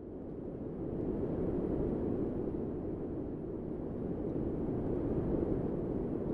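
A steady low rushing noise that swells over the first second or so and then holds.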